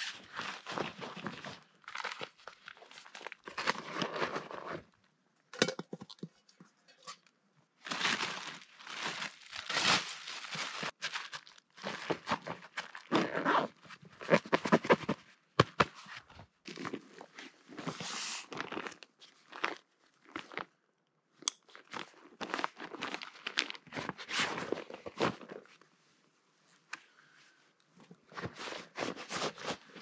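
Rustling, crinkling and crunching in irregular bursts with short pauses in between.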